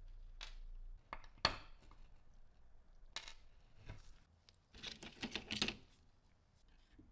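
Small metal clinks as a corroded chain and jump rings are set down on a wooden workbench, a few sharp separate clicks with the loudest about a second and a half in. Then a short burst of rattling clicks as small screwdrivers are handled in their plastic tray.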